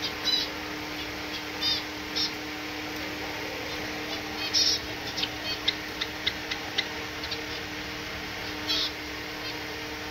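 Small aviary finches calling: short, high chirps and nasal calls scattered irregularly, with louder bursts now and then, over a steady low hum.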